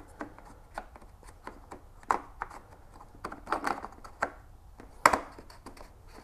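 Hands working the bulb socket out of a plastic New Edge Mustang headlight housing: irregular plastic clicks and rubbing, with one sharper click about five seconds in.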